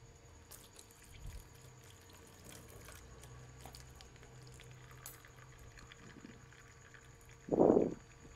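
Coolant trickling in a thin stream from the loosened drain bolt of a Yamaha NMAX scooter's radiator into a plastic basin, faint and steady, after a few light clicks of the Phillips screwdriver at the bolt. A brief, louder puff of noise comes near the end.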